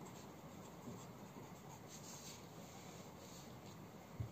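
Faint scratching of a pen writing on notebook paper, in short separate strokes. A soft low thump comes near the end.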